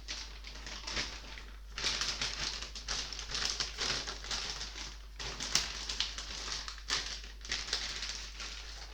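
Hands handling a computer processor upgrade card as it is put back: uneven rustling with many small clicks and taps, over a steady low hum.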